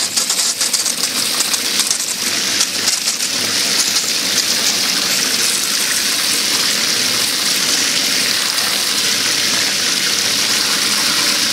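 Garden hose spray nozzle jetting water into a plastic crate of live crayfish standing in water, a steady hiss and splatter as they are rinsed with fresh water.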